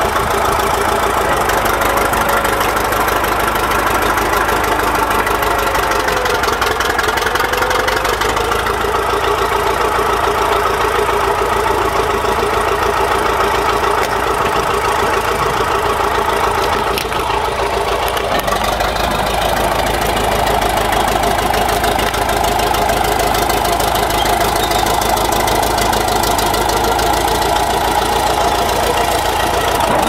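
Caterpillar D7 crawler bulldozer's diesel engine running steadily, newly revived after standing idle. The low rumble grows stronger about two-thirds of the way through.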